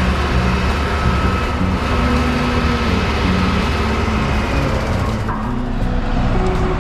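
Steady low rumble of a motor vehicle running, loud and even, with its upper hiss briefly thinning about five seconds in.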